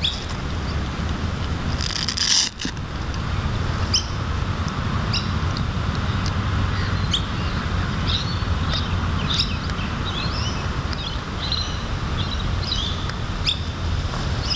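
Wind rumbling on the microphone with scattered short bird chirps over it.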